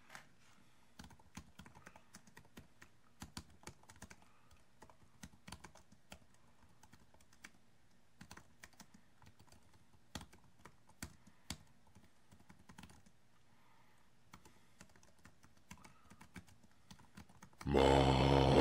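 Computer keyboard typing in irregular bursts of soft key clicks. Near the end a sudden loud blast of sound cuts in.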